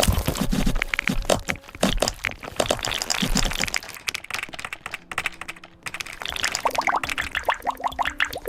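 Keyboard keys being typed on rapidly: a dense, uneven run of clicks. From about two thirds of the way in, short pitched blips join the clicks.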